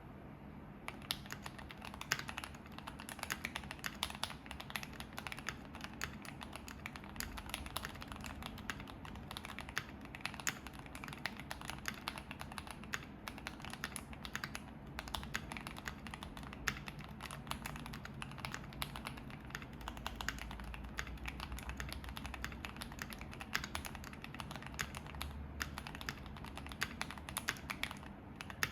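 Typing on a Keychron Q1 mechanical keyboard fitted with lubed and filmed Tangerine V2 linear switches, an FR4 plate, foam dampening and Durock V2 stabilizers: a steady stream of keystrokes, several a second.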